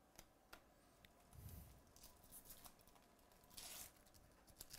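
Faint handling of trading cards with a few light clicks, then a card pack's wrapper tearing open briefly about three and a half seconds in.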